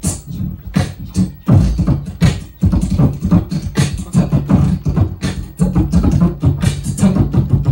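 A man beatboxing into a handheld microphone: a fast, unbroken run of kick-, snare- and hi-hat-like mouth sounds over a low hummed bass.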